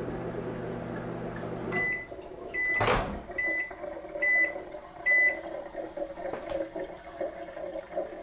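Microwave oven heating butter with a steady hum that shuts off about two seconds in. Five short, high end-of-cycle beeps follow, less than a second apart, with a sharp click of the door being opened among them.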